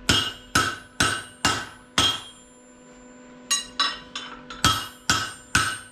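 Hammer blows ringing on a round steel bar being bent cold over a forming tool set in the anvil's hardy hole. Five strikes come at about two a second, then a pause of about a second and a half, then another quicker run of strikes.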